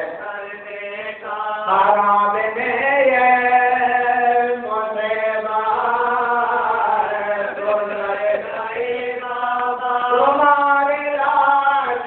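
Vocal chanting in long, drawn-out notes that slide from one pitch to the next without a break.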